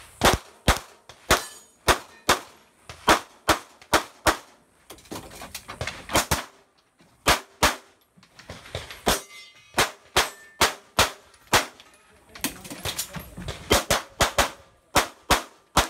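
A semi-automatic pistol fired in fast strings of shots about a third of a second apart, broken by a few pauses of a second or two.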